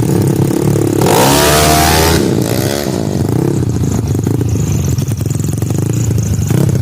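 Tuned Yamaha Mio racing scooter engines running, with a steady drone. About a second in, one engine revs hard with a loud burst of exhaust noise, its pitch sweeping up and then dropping back.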